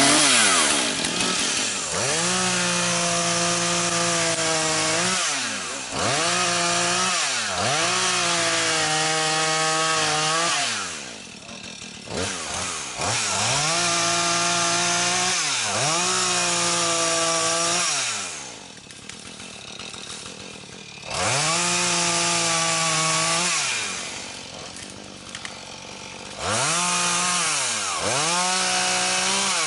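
Husqvarna two-stroke chainsaw cutting wood: it revs up to full throttle for each cut, holds a steady high pitch for one to three seconds, then drops back to idle, about seven cuts in all with longer idle pauses between some of them.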